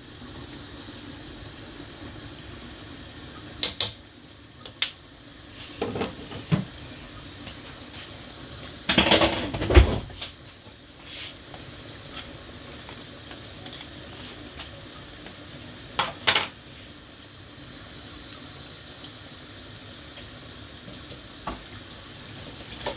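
Kitchen clatter of steel pots, lids and utensils on a gas stove: several short knocks and clinks, with a louder clatter about nine seconds in, over a steady low hiss of pots cooking.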